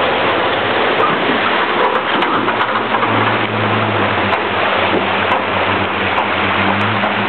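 1986 Ford F-150 4x4 pickup driving through a mud hole: its engine running as a steady low hum, which becomes plainer about three seconds in, under a dense hiss of mud and water churned up by the tyres.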